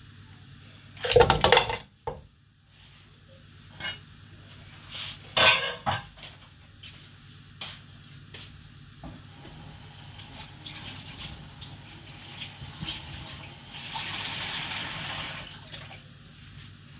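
Kitchen pots and dishes clattering: two loud clanks about one and five seconds in, then lighter knocks and a fork poking and scraping through cooked meat in a plastic dish.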